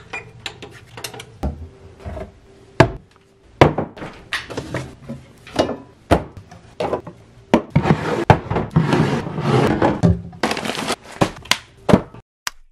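Kitchen containers handled and set down on a countertop: a run of knocks and clunks, with a denser stretch of rustling and handling noise from about eight to eleven seconds in.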